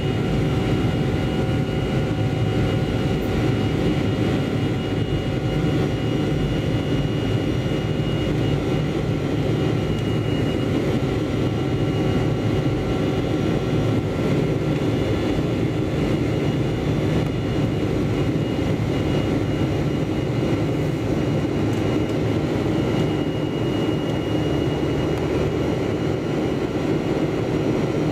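Boeing 737-400 cabin noise in climb: the CFM56-3 turbofans running steadily at climb power, a constant rush of engine and air noise heard from inside the cabin, with a few steady tones running through it.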